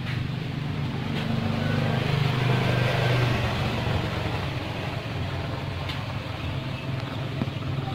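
A motor vehicle's engine running close by, its hum growing louder about two to three seconds in and then easing off.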